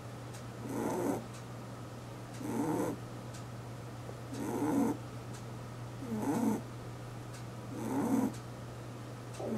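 Pet rabbit snoring in its sleep: about five snores, one roughly every two seconds, each swelling over half a second and then cutting off, over a steady low hum.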